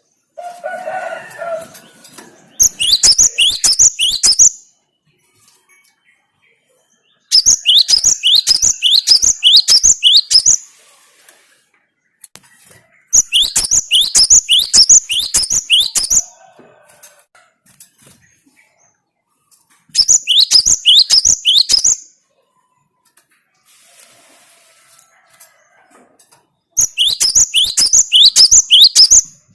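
Cinereous tit (gelatik batu) singing in five loud bouts of about two to three seconds each. Every bout is a fast series of sharp, high notes, each sweeping downward, with pauses between bouts. A softer, lower chatter comes in the first two seconds.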